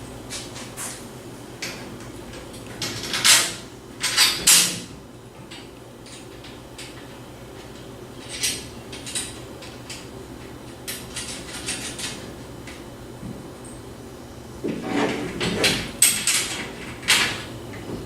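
Scattered clanks, knocks and scrapes of steel treestand parts being handled as rail bolts are fed through and hand-tightened, in two busier stretches a few seconds in and near the end, over a steady low room hum.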